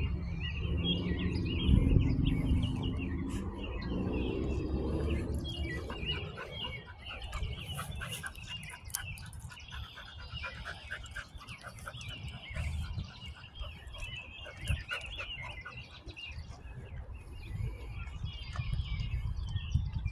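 Birds chirping and calling, many short overlapping calls. A low rumble sits under them for the first several seconds.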